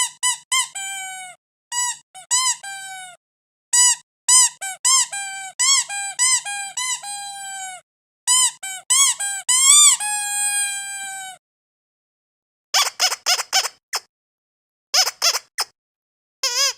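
Squeaky dog toy being squeezed over and over: quick runs of high, pitched squeaks, with a few longer squeaks that slide down in pitch. After a pause about two-thirds of the way in, it gives shorter, harsher squeaks in fast clusters.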